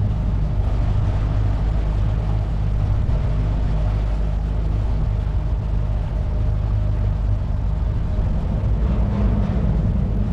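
Outboard motor on a 16-foot jon boat running steadily under way: a constant low drone with a steady rushing noise over it.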